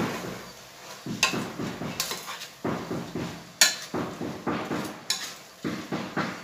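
Metal ladle scraping and knocking against the sides and bottom of a pressure cooker pot while stirring a wet mix of rice, lentils and greens, in irregular strokes with a sharp clank about three and a half seconds in.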